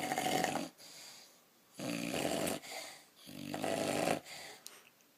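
Snoring: three loud, buzzing snores, each lasting about a second, with softer breathing between them, then quiet near the end.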